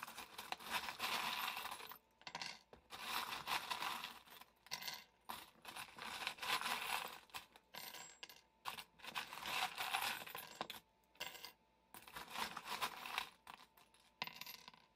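Small metal charms clinking and jingling as hands rummage through a wooden box full of them, in repeated bursts with short pauses.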